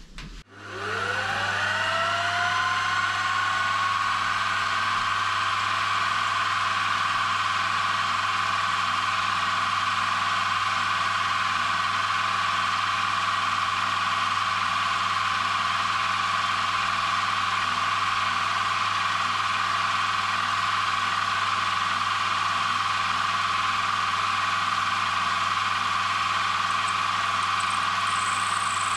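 Small milling machine's spindle motor starting with a rising whine that settles into a steady whine over the first two seconds, then running steadily while a drill bores an angled port into a brass model steam-engine cylinder.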